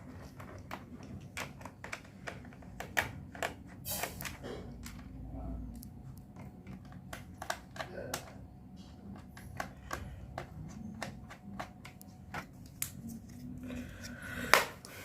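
Irregular small clicks and taps of a laptop being opened up and handled: plastic and metal parts knocking and clicking, a few sharper ones now and then.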